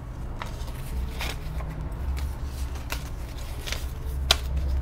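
Paper banknotes being handled and flipped through by hand: a handful of short rustles, the sharpest near the end, over a low steady hum.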